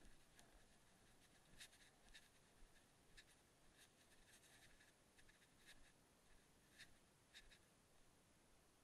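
Near silence, with faint, irregular ticks scattered throughout.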